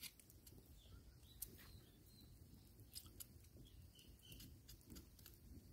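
Near silence broken by a few faint, sharp clicks and crackles of a small knife paring the dry papery skin off a red onion, with faint bird chirps behind.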